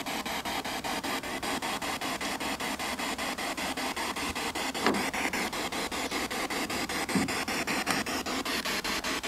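Spirit box sweeping through radio stations: a steady hiss of static chopped about eight times a second. A couple of brief faint sounds break through, about halfway and near the end.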